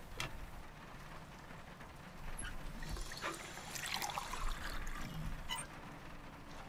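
Water trickling and pouring into a glass mug held at a metal sink, in the middle few seconds. A glass clink on the metal comes just at the start and another near the end.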